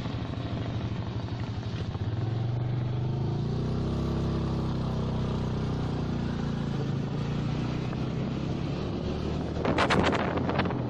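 Motorcycle engine running while riding, its pitch rising about two seconds in and then holding steady. Wind buffets the microphone near the end.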